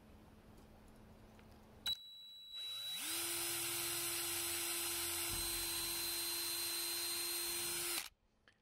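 Cordless drill pre-drilling a screw hole through a roof fan's mounting flange into the van roof: after a click, the drill spins up and runs at a steady speed for about five seconds, then stops abruptly near the end.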